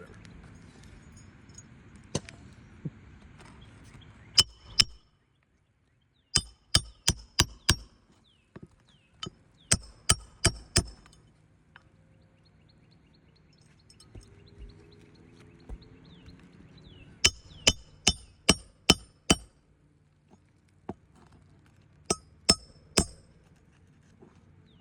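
Roof Snake shingle tool hammering roofing nails back in: sharp metal-on-metal strikes in quick runs of two to six blows, with pauses between runs.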